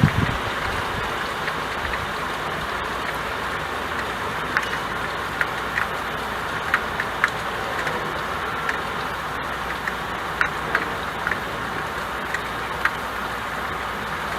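Steady rain falling on window glass: a continuous even hiss, with scattered sharper ticks of single drops striking the pane.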